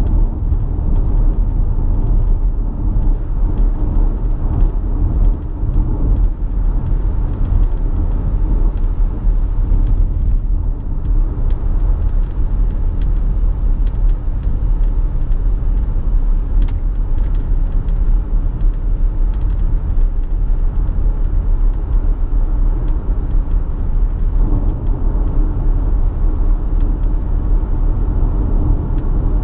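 Interior cabin noise of an Audi A6 3.0 TDI quattro, a V6 turbodiesel, cruising at about 100 km/h: a steady low rumble from the moving car.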